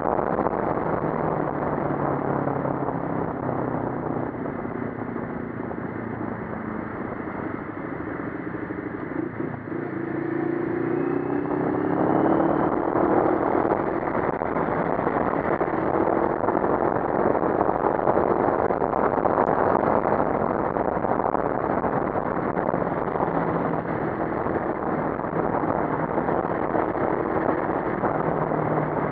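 CFMoto 400NK's parallel-twin engine running under way, heard through heavy wind and road rush on the bike-mounted microphone. The engine eases off for a few seconds, then its note rises as it pulls away again about ten to twelve seconds in.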